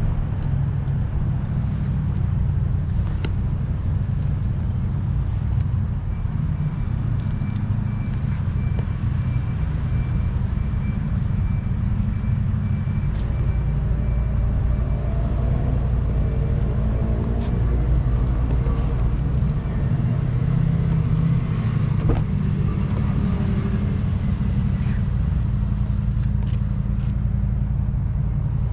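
Steady low rumble of a car engine running, with a few light clicks.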